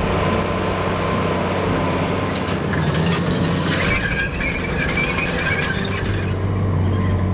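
Case IH Magnum tractor engine running steadily under load while pulling a Horsch cultivator through the soil, with a high metallic squeal standing out from about four seconds in for a second or two.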